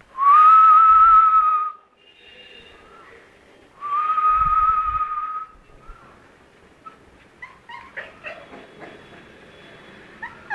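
Two long, steady high-pitched tones, then a puppy whimpering and yipping in a run of short, quick cries through the second half.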